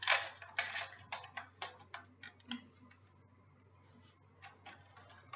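Sharp clicks and taps of hard plastic as a toy remote-control car is handled: a quick irregular run in the first couple of seconds, a pause, then a few more near the end.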